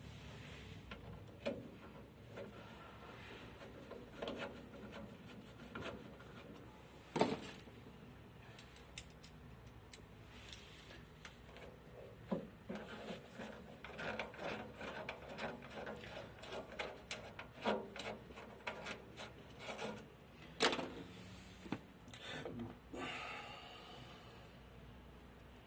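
Hands working with tools and small metal parts on an oil burner: irregular clicks, taps and rubbing. There are sharper knocks about seven seconds in and again about twenty-one seconds in, and the clicking is busiest in the second half.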